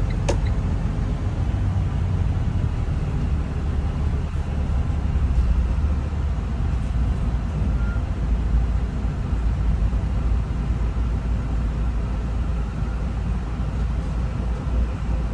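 Steady low rumble of a vehicle's engine and road noise heard from inside the cab while driving slowly, with a single sharp click just after the start.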